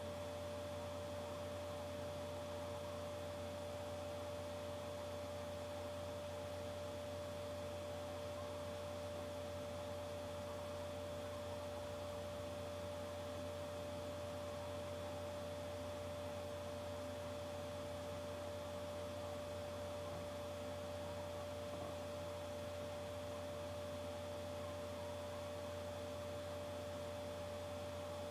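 Steady electronic hum: one constant mid-pitched tone over a low hum and a faint hiss, unchanging throughout.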